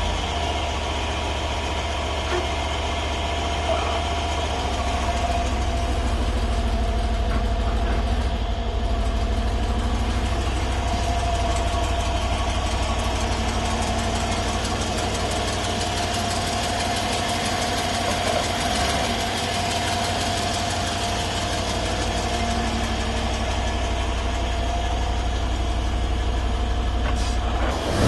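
Mercedes M278 4.7-litre twin-turbo V8 idling steadily just after a cold start, with the wastegate flap fluttering and rattling in the exhaust flow, the sign of a worn wastegate linkage.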